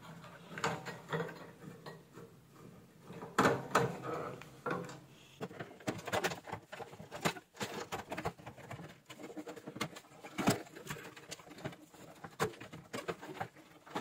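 A screwdriver working the screws of a microwave oven's control panel, then the panel being lifted out of the sheet-metal cabinet: a run of irregular small clicks, taps and light knocks, with a couple of louder knocks.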